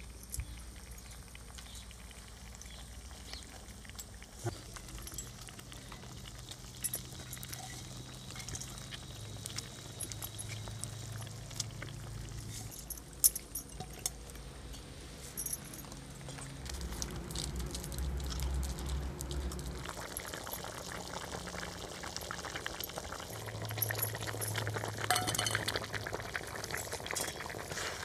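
Curry bubbling in a steel kadai, with scattered clinks of steel bowls against the pan and one sharp clink about 13 seconds in. Near the end a flat metal spatula stirs and scrapes through the curry, the loudest stretch.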